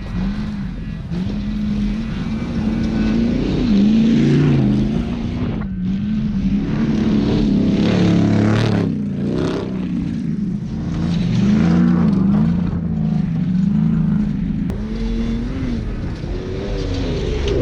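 Off-road race vehicle engine running hard, its pitch rising and falling again and again as it revs up and down, under a steady rushing noise.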